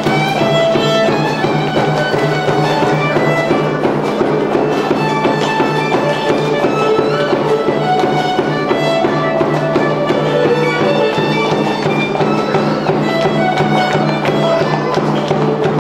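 Live Santiago festival music from the Peruvian Andes: a violin playing a continuous melody over a small tinya hand drum, with a steady low drone beneath.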